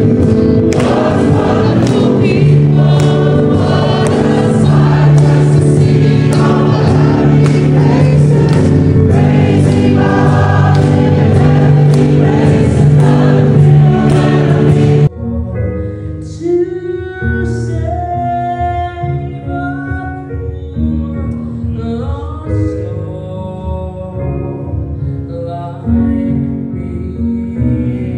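A large group of people singing a gospel song together, loud and full. About halfway through it cuts suddenly to a small group of four singers singing into microphones, quieter and clearer.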